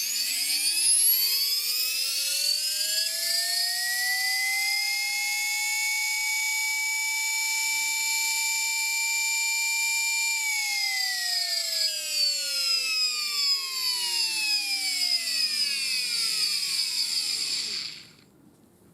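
Desoutter Type 3 air die grinder's vane air motor running on 50 psi airline air: its whine climbs in pitch over several seconds as it speeds up, holds at full speed, then sinks steadily as it spins down, stopping near the end. A hiss of air runs under the whine.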